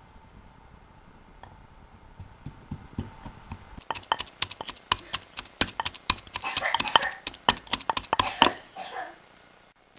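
Fresh turmeric root being crushed by hand: a run of sharp, irregular knocks and clicks that starts about two seconds in, comes thick and fast from about four seconds, and dies away near the end.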